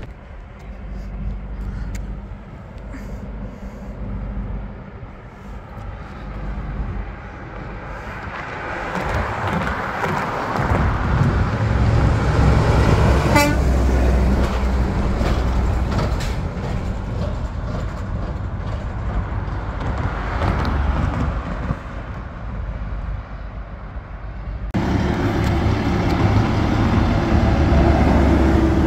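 Diesel semi-trucks descending a mountain grade on the engine brake: a low, steady rumble that swells as a tractor-trailer passes close by, then changes abruptly near the end as another truck comes through.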